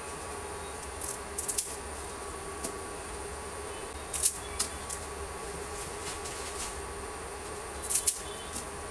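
Water boiling in a frying pan, a steady bubbling hiss over a faint hum. Blocks of dried instant noodles are dropped into the water with short crackling splashes about a second in, around four seconds in, and again near the end.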